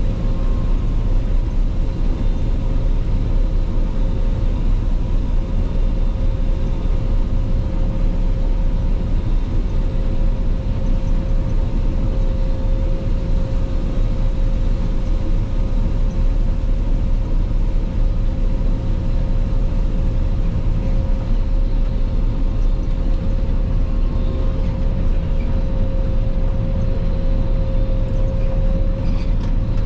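Claas Lexion 480 combine harvester running steadily while harvesting rapeseed: a constant engine and threshing-machinery drone with a steady whine over it.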